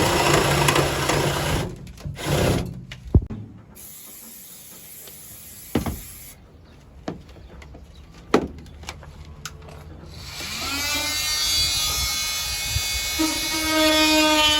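A power drill runs for about two seconds, stops, and briefly runs again, followed by three sharp knocks spread over the next several seconds. About ten seconds in, background music with a plucked, guitar-like tone comes in.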